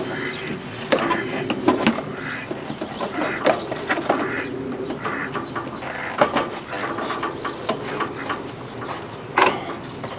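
Irregular clicks, knocks and scraping as the inner and outer air filters of a Kubota M59 tractor are fitted by hand into their air cleaner housing, with one sharp knock near the end.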